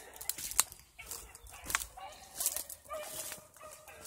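Dogs giving short pitched yips and whines, mixed with many sharp clicks and crackles.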